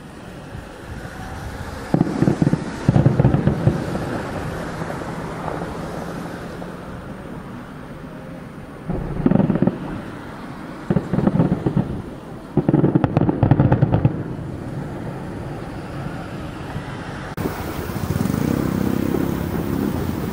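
Aerial firework shells bursting a kilometre or two away: several booms come in clusters, the heaviest about two, nine and thirteen seconds in, with crackling around thirteen seconds. Wind noise rumbles on the handheld camera's microphone throughout.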